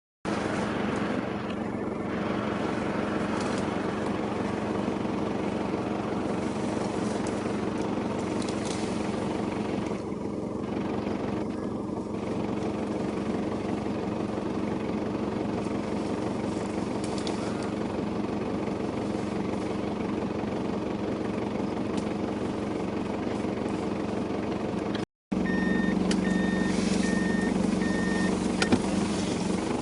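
Vehicle engine idling steadily with a low, even hum. The sound cuts out for a moment near the end, then resumes slightly louder.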